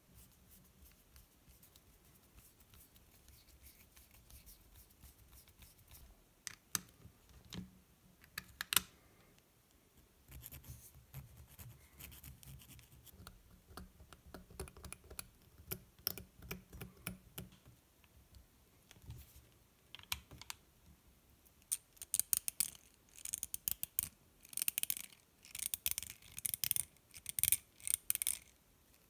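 Small RC crawler axle being handled and worked on: scraping and light clicks of a small hobby tool and fingers on the plastic diff cover, its screws and the axle housing. Over the last several seconds come repeated clusters of rapid sharp clicking.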